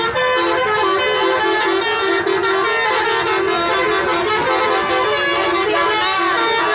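Bus basuri musical horn playing a tune: loud held notes that step up and down in pitch without a break.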